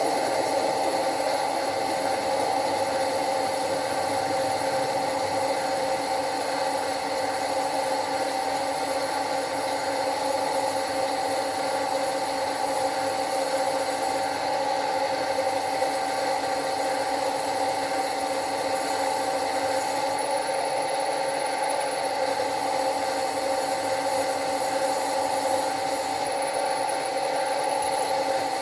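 Machine spindle running steadily as a small drill bit cuts into the steel smoke box plate, a constant hum with the grind of the cut.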